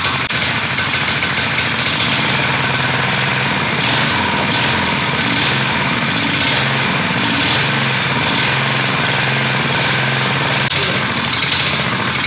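Tecumseh single-cylinder small engine, about 6 hp, on an off-road go-kart, running steadily. The engine has just been brought back to running after sitting unused for years.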